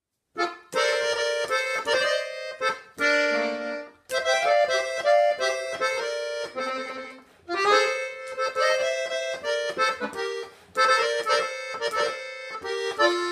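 Button accordion played solo, a melody over chords in short phrases with a few brief pauses between them. It starts about half a second in.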